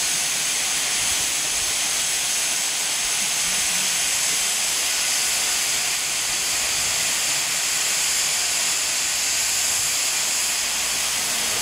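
Steam locomotive letting off steam in a steady, continuous high-pitched hiss, with no exhaust beats.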